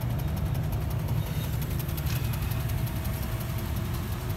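HMT 5911 tractor's diesel engine idling steadily, a low even rumble.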